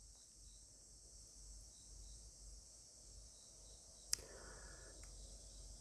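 Near silence: room tone with a faint steady high hiss and one soft click about four seconds in.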